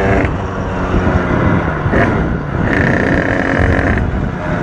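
A DRD 88cc pit bike's engine running hard under way, its note shifting up and down, with a brief dip about two seconds in before it climbs again.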